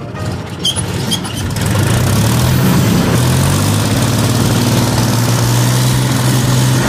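Tractor diesel engine running loud and steady as it drives along, revved up about a second and a half in, its pitch climbing briefly, then held at high revs: a cooled-down engine being revved hard to warm it up.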